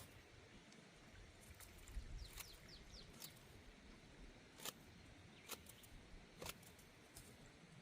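Near silence: faint outdoor ambience with a soft hiss, scattered sharp clicks, and a quick run of short high chirps about two and a half seconds in.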